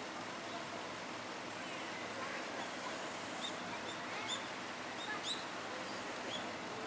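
Small birds chirping: a scatter of short, high calls, mostly in the second half, over a steady outdoor background hiss.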